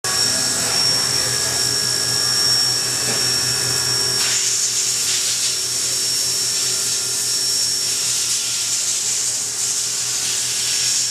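CNC milling machine cutting a part under flood coolant: a steady high whine from the spindle and cutter over a constant hiss of coolant spray and chips. About four seconds in, the hiss grows louder.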